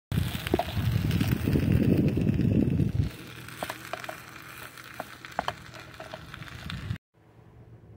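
Onions frying in a nonstick pan while being stirred with a spatula: a loud low rumbling noise for about the first three seconds, then quieter crackling with a series of scrapes and taps of the utensil against the pan. The sound cuts off suddenly about seven seconds in.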